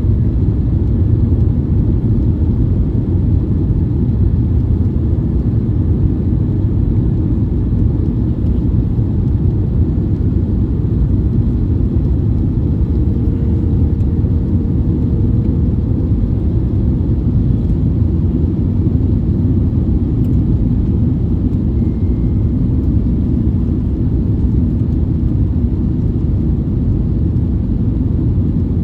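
Cabin noise of an Airbus A321neo: a steady low rumble of engines and airflow.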